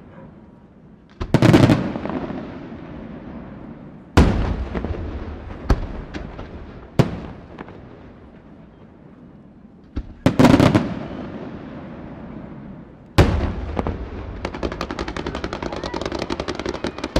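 Professional display fireworks firing: six loud reports at uneven intervals, each trailing off in a rumbling echo. In the last few seconds a fast string of cracks, about ten a second, as a salvo goes up together with fountains over the water.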